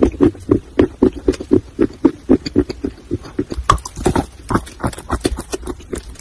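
Dry clay being chewed close to the microphone: steady crunching at about four crunches a second, with a sharper crack a little before the four-second mark as another piece is bitten off.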